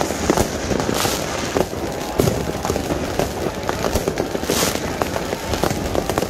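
Fireworks going off in large numbers: a dense, unbroken run of overlapping bangs and crackles, with brief hissing bursts about a second in and again near the middle.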